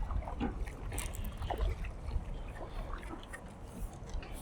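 Small splashes, clicks and knocks from a hooked bass being brought in beside a kayak, over a steady low rumble.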